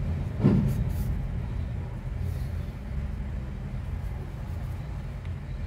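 A steady low rumble of background noise, with a brief louder sound about half a second in.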